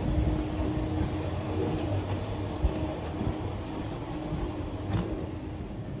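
Steady low machinery rumble with a faint steady hum, broken by a sharp knock about two and a half seconds in and a click near five seconds.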